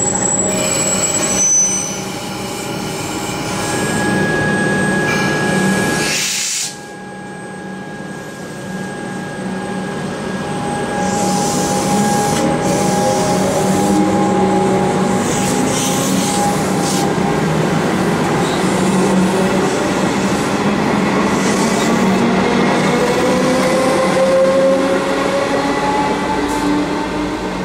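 Melbourne suburban electric multiple units on the move: a Siemens train running along the platform with a steady motor whine over wheel noise on the rails, and a Comeng train approaching. Near the end a tone slowly rises in pitch.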